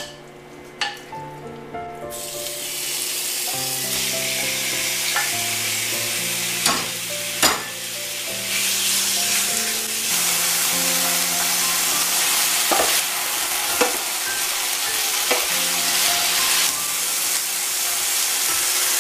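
Boneless marinated chicken cubes sizzling and frying in hot oil in a pan. The sizzle starts about two seconds in. A wooden spoon stirs them, knocking against the pan several times. Soft background music plays underneath.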